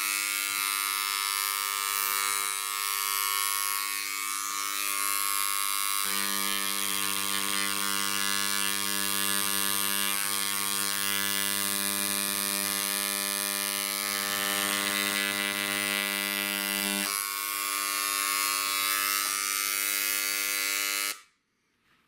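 Dremel Engraver 290-3 electric engraver buzzing steadily as its tip hammers into wood at the lowest depth setting (1). The buzz grows fuller for a long stretch in the middle, then cuts off suddenly near the end as the engraver is switched off.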